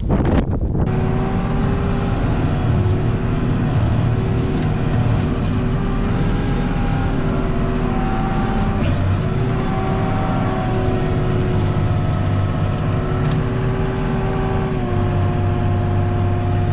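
Brief wind on the microphone, then a tractor engine running steadily under load while a bale processor shreds and blows straw bedding, with a steady whine over the engine, heard from inside the tractor cab.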